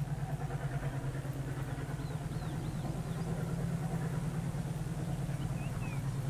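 Distant diesel locomotives, which look like a pair of Alcos, running steadily as they approach under power, with an even low engine throb.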